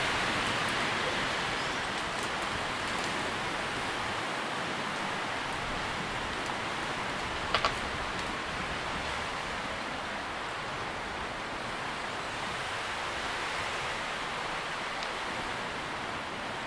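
Tree leaves rustling in the wind: a steady, even hiss that swells and eases gently. About halfway through there is a brief double tick.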